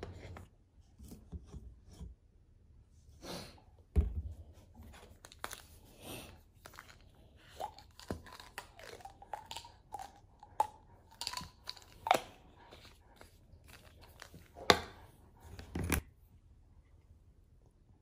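Plastic bottles being handled on a counter: crinkling of a plastic water bottle, a cap being twisted and set down, with scattered clicks and a few sharp knocks.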